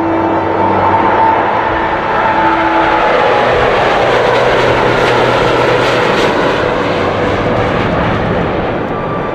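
A Boeing 787 Dreamliner's twin turbofan engines at takeoff power during the takeoff roll and liftoff. A loud rushing jet noise builds, peaks through the middle, and eases off near the end as the airliner climbs away.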